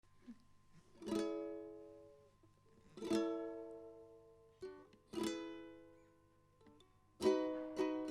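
Strummed string instrument: three single chords about two seconds apart, each left to ring and fade, then a steady rhythmic strum starting about seven seconds in.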